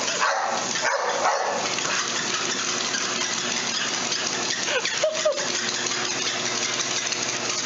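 A motorized treadmill running with a steady whir while a dog trots on its belt. About five seconds in the dog gives a brief high whine.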